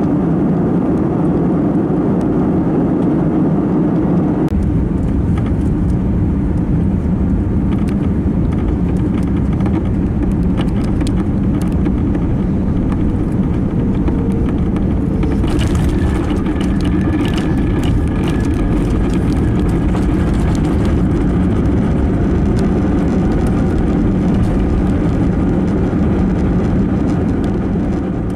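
Airbus A321neo cabin noise from a window seat over the wing during landing: a steady, loud rush of air and engine noise. About four and a half seconds in a deeper rumble joins as the wheels roll on the runway. From about fifteen seconds a higher roar with whining tones rises as the engines spool up during the landing roll.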